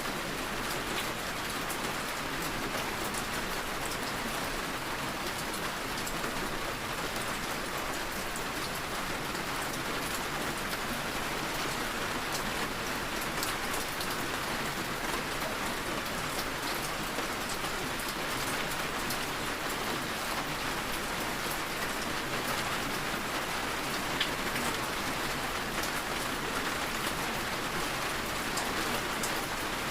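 Steady rain falling: an even hiss of rain with many small drop ticks, unchanging throughout.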